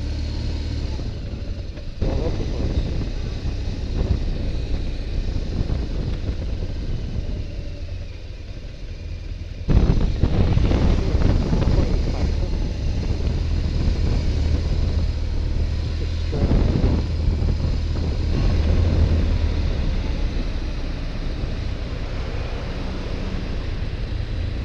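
Motorcycle engine running under way, with wind and road noise across the bike-mounted camera's microphone; it gets louder about two seconds in and again, more sharply, about ten seconds in.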